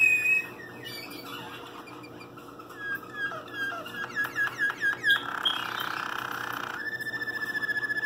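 Waterslager canary singing. A run of short falling notes quickens into a rapid series, then gives way to a rough rolling passage, and near the end settles into a steady fast trill.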